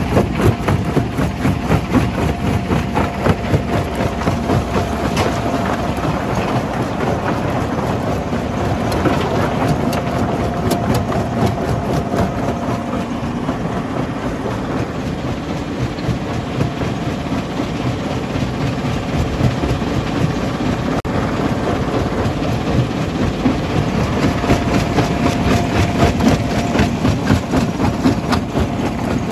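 Stone jaw crusher plant running: a steady, dense mechanical clatter and rattle, with a heavy diesel engine running under it.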